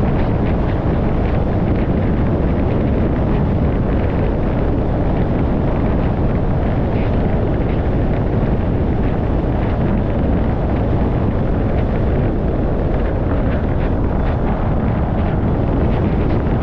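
Steady road and wind noise from a moving car: an unbroken low rumble that stays level throughout, with faint scattered ticks in the upper range.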